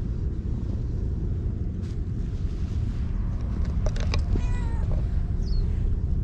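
Tabby-and-white stray cat giving one short, slightly falling meow about four and a half seconds in, over a steady low rumble.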